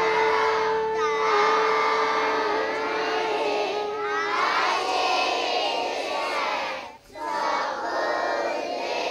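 A long, steady horn-like tone is held and then stops about four seconds in, under a group of children singing together. The singing breaks off for a moment near seven seconds.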